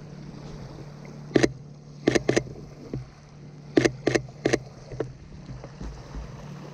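Sony A7III camera shutter firing six times: once, then twice in quick succession, then three times in a quick run, over a steady low hum.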